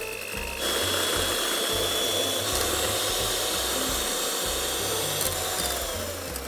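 Electric mixer whipping eggs and sugar: a steady motor whirr with a thin whine that steps up to a higher speed about half a second in, then slows down with a falling whine near the end.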